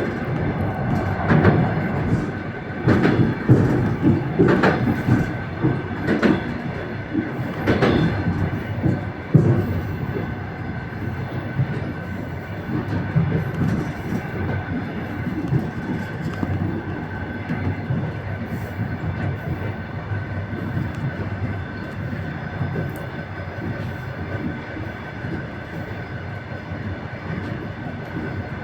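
Passenger train wheels clattering over rail joints, heard from the carriage vestibule: a run of knocks about a second apart in the first ten seconds, then a steady rumble with a thin whine.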